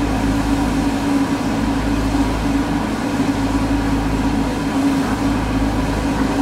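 Small brass gas torch with a number zero tip burning steadily as it heats a steel rifle barrel journal to flow hard solder, along with a constant low hum.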